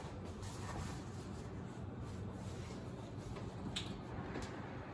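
Quiet room tone with a low steady hum, and two faint short clicks near the end.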